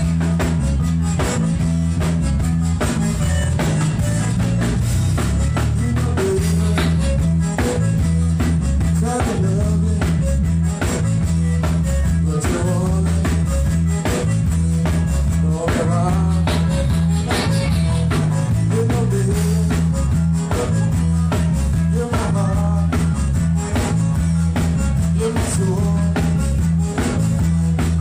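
Live zydeco band playing: a diatonic button accordion carries the melody over electric bass and a steady drum-kit beat.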